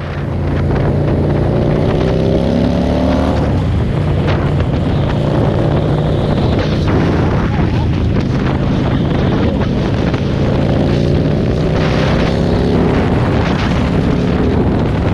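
Motorcycle engine running at highway speed, its pitch rising as it accelerates over the first few seconds and again near the end, with heavy wind buffeting on the microphone.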